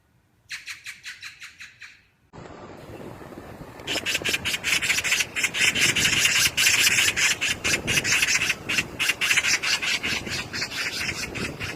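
Magpies giving their harsh, rattling chatter: a short burst of about ten quick calls, then a longer, louder run of rapid calls from about four seconds in.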